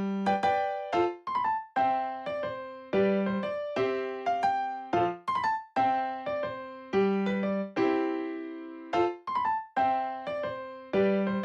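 Background music: a light piano melody of short, decaying notes.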